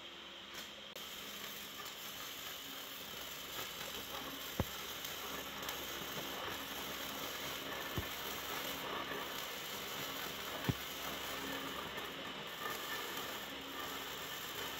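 Electric arc welding: a steady crackling hiss from the arc, with three short sharp pops spread through it.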